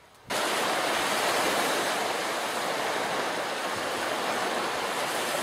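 Steady rushing wash of small waves in shallow water at the shore. It starts abruptly a fraction of a second in and holds even, with no distinct splashes.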